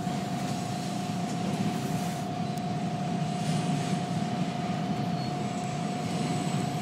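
Toronto TTC subway train standing in the tunnel, humming steadily: a low rumble with a constant higher tone held over it.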